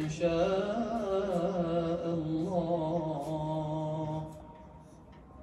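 A man's voice chanting an Arabic supplication in long, wavering notes over a steady low tone, played through a television's speaker. The chant stops about four seconds in.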